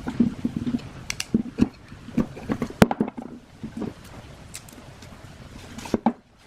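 Irregular clicks and knocks of metal parts and tools being handled while the old ceiling fan is worked on, with the sharpest click about three seconds in.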